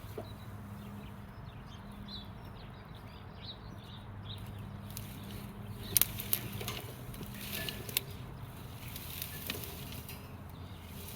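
A steady low machine hum, with short high chirps in the first few seconds and a few sharp knocks or snaps from about the middle on, the loudest about six seconds in.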